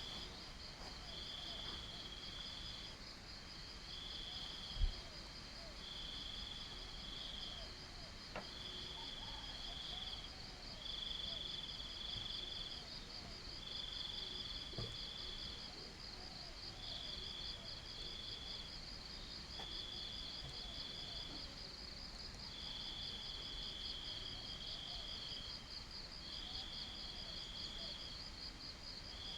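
Crickets calling: one high, fast-pulsing trill that never stops, and a lower trill in bursts of a second or two, about one every two seconds. A single short thump about five seconds in.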